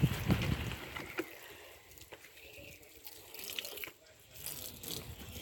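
Water splashing and dripping as a dog is bathed, louder in the first second and then quieter, with scattered small drips and clicks.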